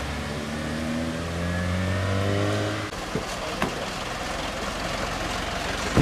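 A car engine accelerating, its pitch rising steadily, then breaking off sharply about three seconds in. A steadier engine hum follows, with two short clicks.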